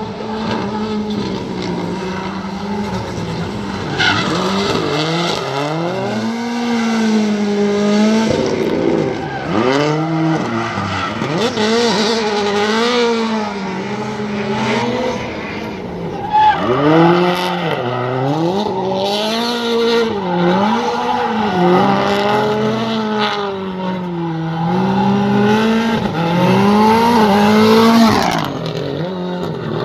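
A Subaru drift car's engine revving up and down again and again as it slides through the turns, with tyre squeal over it.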